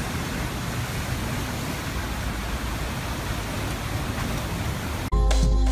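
Steady rushing of fast, turbulent floodwater pouring through a concrete spillway. About five seconds in it cuts off abruptly and music with a steady beat and bass notes begins.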